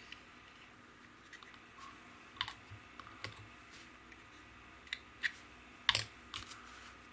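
Scattered light clicks and taps of small plastic model-kit parts being handled and pressed into place during gluing, with the sharpest click about six seconds in.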